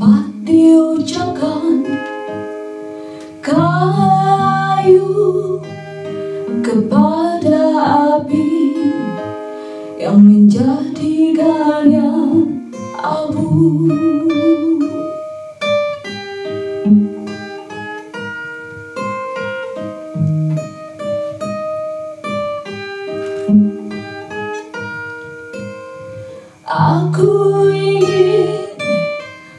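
Acoustic guitar picked note by note under a woman singing a poem set to music. She sings in phrases, leaving a stretch of guitar alone in the middle before coming back near the end.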